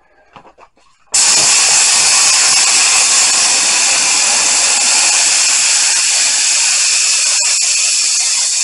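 Air-powered spray gun spraying upholstery glue: a loud, steady hiss that starts suddenly about a second in, with one very brief break near the end.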